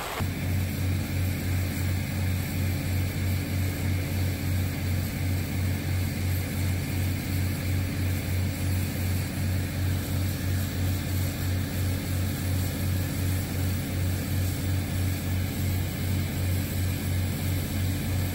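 Engine-driven flood pump running steadily at full output, a low drone with an even throb, over the rush of its discharge jet pouring into the creek.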